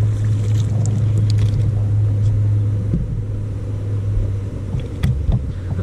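Boat motor running with a steady low hum, and a single sharp click about five seconds in.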